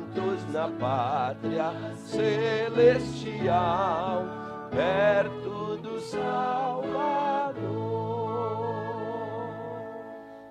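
Congregation singing a hymn with instrumental accompaniment, voices wavering with vibrato, then closing on one long held chord from about eight seconds in that fades out near the end.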